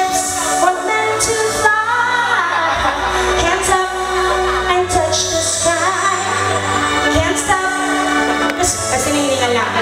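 A woman singing into a microphone over loud backing music, her voice holding and bending long notes over a low bass line.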